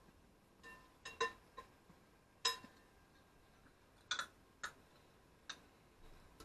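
A spoon clinking against a container, about nine sharp, ringing clinks at irregular intervals, as curry paste is scooped out.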